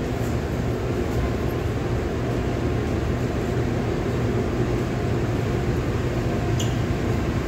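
Steady low drone of a ro-ro ferry's engines, heard from the open deck, under an even rushing noise.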